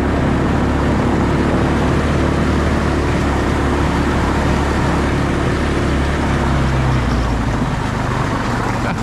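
Vehicle engine and tyres running on a snow-covered road, a steady low hum with road noise; the engine note drops about seven seconds in as the vehicle eases off.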